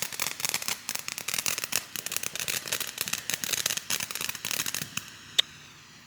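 Consumer firework cake's silver crackle effect: a dense run of rapid crackling pops that thins out after about five seconds, with one last pop shortly after.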